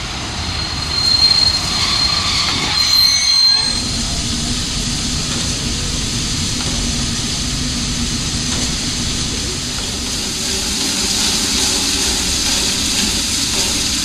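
DB class 01.10 steam locomotive 01 1066 steadily hissing steam while shunting at walking pace, with a thin high squeal in the first few seconds. The hiss grows stronger near the end.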